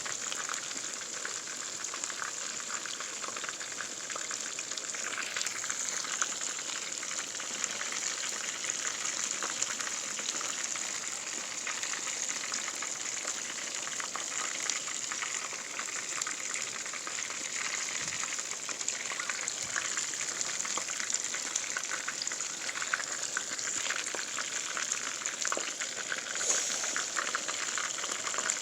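Food deep-frying in hot oil: a steady sizzle full of fine crackles, with no pauses.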